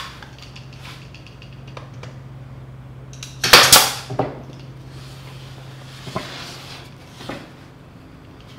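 Wooden cart frame with a metal pipe axle being handled and turned over on a table-saw top: a burst of wood knocks and metal clatter about three and a half seconds in, then a couple of lighter knocks later.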